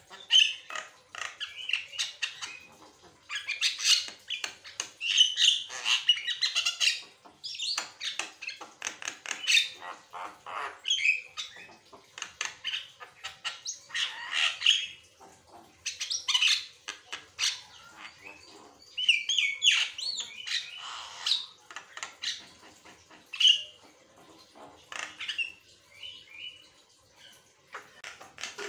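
Javan myna singing in long, almost unbroken bouts: a fast, varied run of whistled notes mixed with clicks and harsh squawky calls, phrase after phrase with only brief breaks.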